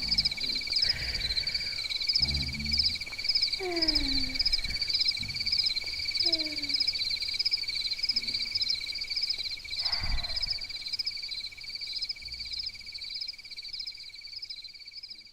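Crickets chirping in a steady, fast-pulsing high trill, with a second steady trill a little lower, as night-time ambience. A few short, low falling tones come and go, and a soft thump sounds about ten seconds in.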